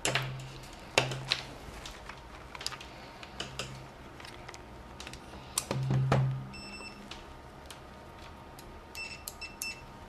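Digital multimeter beeping: one short beep about two-thirds of the way in, then a quick run of short continuity beeps near the end as the probes touch across the adapter's fuse, the sign that the fuse still conducts. Before the beeps, clicks and rustling of the test leads being handled.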